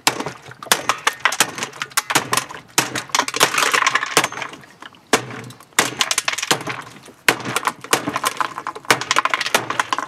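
Repeated hammer blows on the plastic agitator of a GE top-load washing machine, an irregular run of sharp knocks as the plastic cracks and breaks apart.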